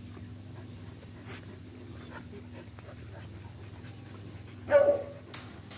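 Dogs panting, then a single loud, short bark from one dog near the end.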